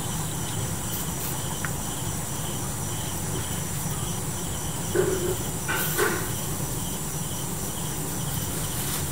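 Insects chirping in a steady even rhythm over a steady hiss, with two brief short sounds about five and six seconds in.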